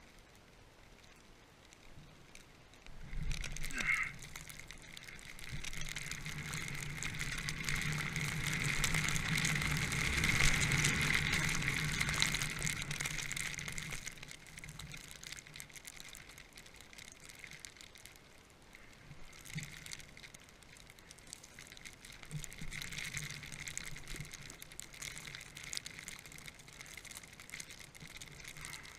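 Rushing, hissing noise of moving through deep powder snow. It swells about three seconds in, is loudest for several seconds, then dies down to a softer hiss.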